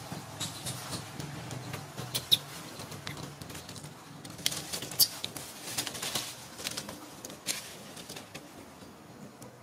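Scattered light rustles and sharp little ticks as a macaque mother and her newborn shift on dry leaf litter, over a faint low hum that fades away.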